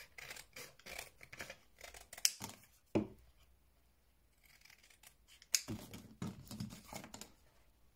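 Small scissors snipping through cereal-box cardboard with paper glued on it: a quick run of cuts, ending in a couple of sharp snips. After a short pause, a few knocks and rustles as cut cardboard pieces are set down on a wooden table.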